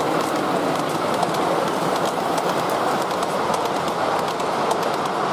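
G scale model passenger train rolling past close by: a steady rumble of wheels on the track with a rapid scatter of light clicks as the cars run over the rail joints.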